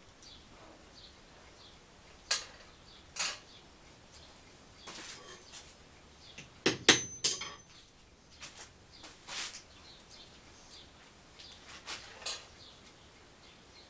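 Sharp metallic clinks and knocks of small steel pieces and hand tools handled on a steel workbench. The loudest is a quick cluster of hammer strikes on metal about seven seconds in.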